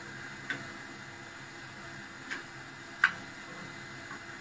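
A few short, sharp knocks of wooden pieces being set down and handled on the metal bandsaw table, the loudest about three seconds in, over a steady faint hum.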